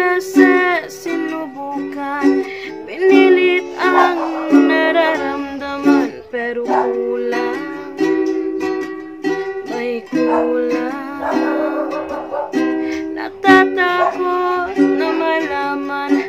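Ukulele strummed in chords, with a woman's voice singing along.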